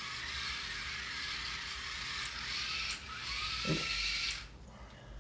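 Small electric drive motors of a Raspberry Pi–controlled four-wheel robot car whining as it drives; about three seconds in the whine drops and spins up again with a rising pitch, then stops about a second later. A few sharp clicks mark the switching on and off.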